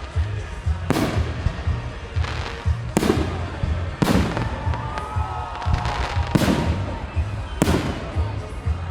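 Fireworks display: five sharp shell bursts about one to two seconds apart, each followed by an echoing tail. Underneath runs music with a steady bass beat.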